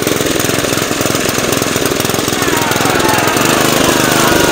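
Briggs & Stratton Intek 206 single-cylinder engine on a McLane reel mower running just after start-up, with a fast, rough beat. A higher whine rises in pitch from about halfway. It sounds rough after an aftermarket carburetor replacement that the owner judges unsuccessful, leaving the engine underpowered.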